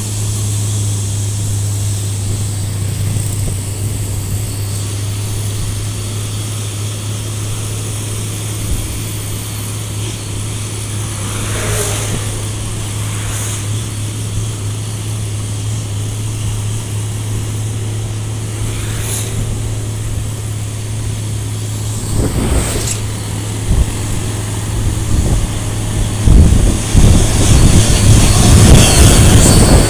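Hino truck's diesel engine roaring steadily as it pulls a loaded container trailer uphill, heard from a motorcycle following close behind, with a low drone and wind and road rush. In the last few seconds the sound grows louder and rougher as the motorcycle draws alongside the truck's cab.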